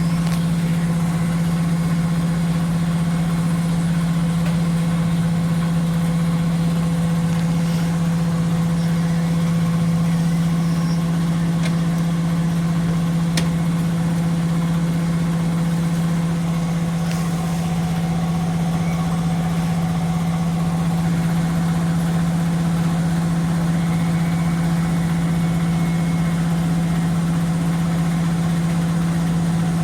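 Electrolux W5300H large-capacity washer spinning: a steady mechanical hum with one strong low tone, and a few faint clicks.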